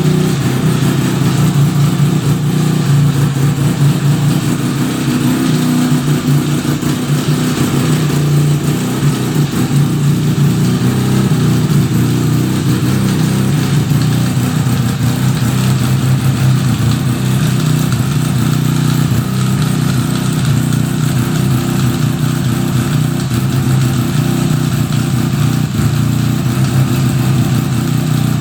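1975 Suzuki RE5's single-rotor Wankel engine running at a steady speed. The owner reports an abnormal noise from the transmission when it runs.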